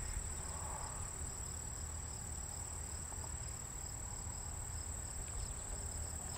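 Field insects, crickets, trilling steadily in a high, even pitch, with a faint pulsing trill below it and a low rumble underneath.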